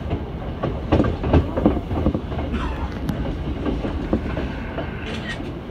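Hankyu 7000-series electric train running, its wheels clattering over rail joints under a steady rumble, heard from inside the car. A cluster of louder clacks comes between about one and two seconds in.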